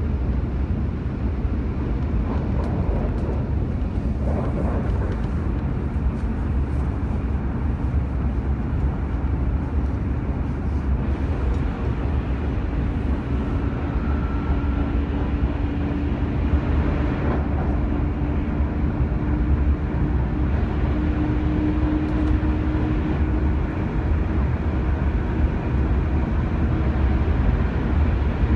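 Vehicle on the move: a steady low engine and road rumble, with a faint whine that slowly rises in pitch through the second half.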